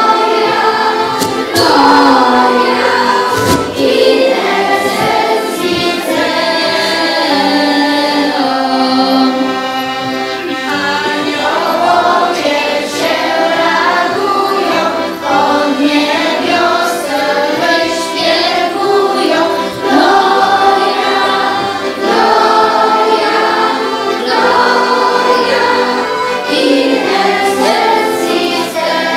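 A children's choir singing a Christmas song together, continuously.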